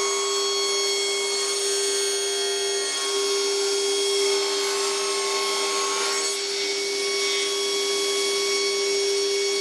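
Sliding table saw ripping through a rough board, cutting off its bark edge: a steady blade whine over the noise of the cut, with no change in pitch or level.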